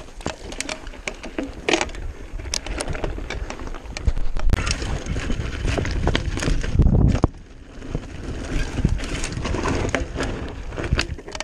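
Commencal META AM V4 mountain bike ridden fast over rocks and loose stones: tyres crunching and the bike rattling with many sharp clicks and knocks, over a low rumble of wind buffeting the on-board microphone. The rumble is loudest from about four seconds in and drops off briefly a little past the middle.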